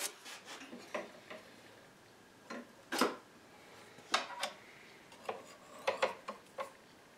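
Scattered light clicks and taps from small hand tools and parts being handled at a workbench, several sharp ticks a second or so apart, bunched near the end.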